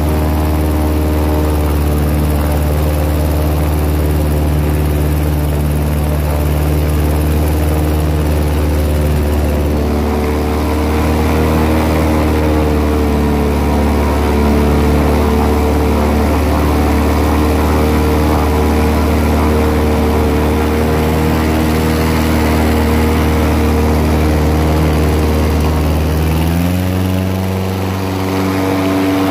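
Airboat engine and propeller running steadily at cruising speed, with a steady rushing noise over it. Near the end the engine note steps up in pitch.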